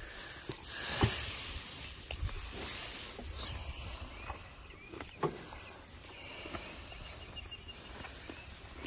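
Cattle and goats feeding at a pile of loose hay: dry straw rustling as they pull and munch at it, with a few sharp crunches, one about a second in and another about five seconds in.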